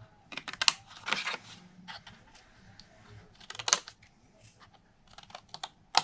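Scissors snipping through scored cardstock: short groups of crisp clicking cuts with brief paper rustles between them.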